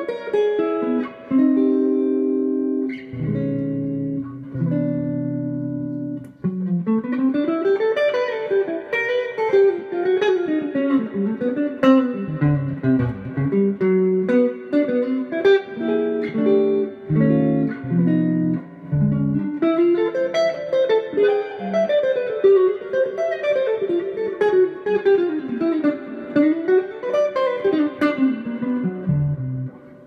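Fender Telecaster electric guitar being played: a few sustained chords for about the first six seconds, then fast single-note runs that climb and fall in pitch.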